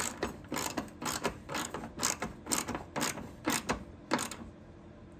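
Socket ratchet driving a 10 mm socket on an extension, tightening a headlight bracket bolt: the pawl clicks in short bursts about twice a second on each back-swing, then stops about four and a half seconds in as the bolt is run down tight.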